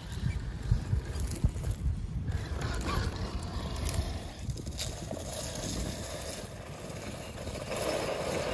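1/10-scale RC rock crawler driving over loose gravel: stones crunching and knocking under its tyres, densest in the first few seconds, then a steadier drivetrain noise that grows louder near the end as it crawls on.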